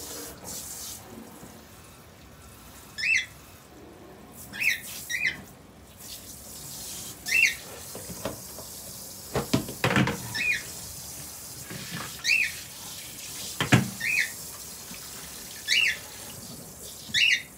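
Cockatiel giving short, sharp chirps again and again, about nine in all, spaced a second or two apart, over the hiss of running tap water. A few knocks, like dishes in a sink, sound in the second half, the loudest about fourteen seconds in.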